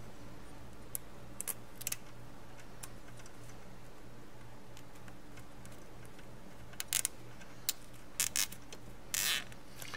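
Small nylon tie strap being threaded and pulled tight around a bundle of wires: scattered light plastic clicks, then a short ratcheting zip about nine seconds in, over a low steady hum.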